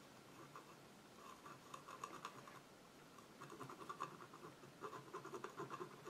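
Faint scratching of a metal palette knife scraping acrylic paint onto a canvas panel, in many short strokes that come thicker in the second half.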